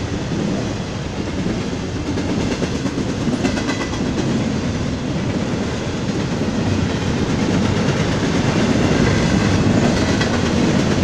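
Double-stack container cars of a Union Pacific freight train rolling past, a steady rumble of steel wheels on the rails with clickety-clack from the rail joints.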